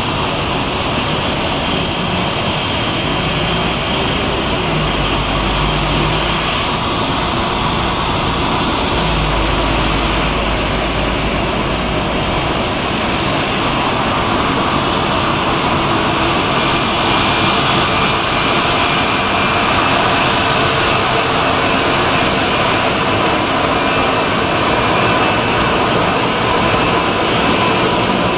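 Airbus A220's Pratt & Whitney geared turbofan engines running at taxi thrust: a steady whine over a rushing hiss, growing a little louder as the jet comes closer.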